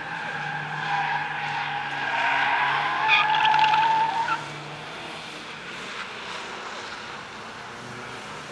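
Skoda Fabia race car cornering hard, its engine running under load and its tyres squealing, loudest from about two to four seconds in, after which the squeal stops and the engine carries on more quietly.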